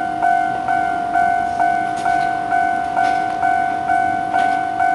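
Japanese railway level-crossing warning bell dinging steadily at a little over two strikes a second, the signal that a train is approaching the crossing.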